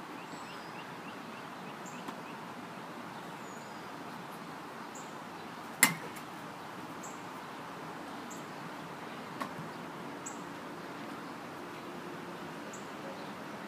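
A plastic bat smacking a wiffle ball off a batting tee: one sharp crack about six seconds in, over a steady hiss of outdoor background noise.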